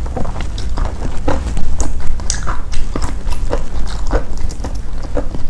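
Close-up chewing and biting of crispy fried fish and its crisp fried flakes: irregular crunches and crackles, with a steady low hum underneath.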